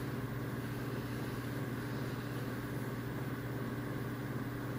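Steady low hum of room tone, unchanging throughout, with no other events.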